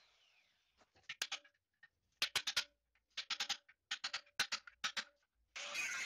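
Hammer blows on a chisel wedged into the partly ground-through seam of a steel scroll-compressor shell, struck to break the halves loose. About fifteen sharp strikes come in quick clusters. A Makita angle grinder faintly winds down at the start, and starts grinding the shell again near the end.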